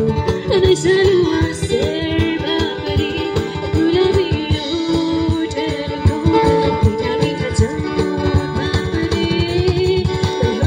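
Live band music: a singer's held, wavering melody over electric guitar and a steady beat.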